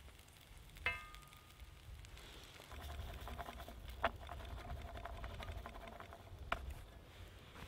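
Carved wooden stir stick knocking against a titanium fry pan of fiddleheads and garlic cooking over low coals: a sharp tap with a brief metallic ring about a second in, then two more knocks, over a faint low rumble.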